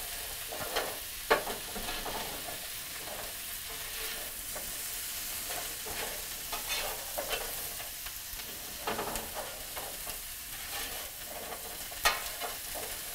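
Artichokes sizzling as they toast in a hot grill pan on the stove, being turned with a utensil that scrapes and clicks against the pan a few times, most sharply about twelve seconds in.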